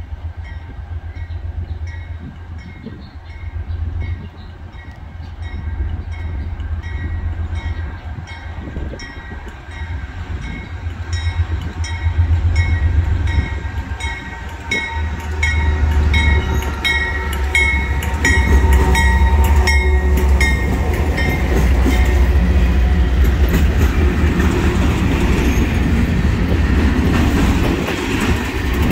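Norfolk Southern diesel freight locomotives approaching and passing with a deep engine rumble, while a bell dings steadily at an even beat. The sound then turns to the louder rolling clatter of empty trash container cars going by on jointed rail.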